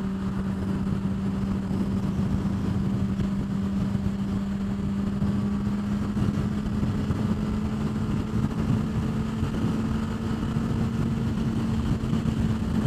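Honda CBR600RR's inline-four engine running at a steady highway cruise under a dense rush of wind, its note rising slightly about halfway through as it gathers a little speed.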